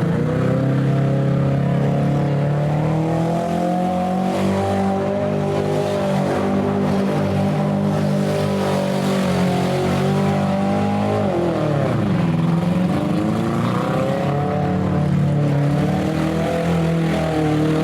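Compact car engines running hard and revving in a demolition derby. About eleven seconds in, one engine drops sharply in pitch and then revs back up.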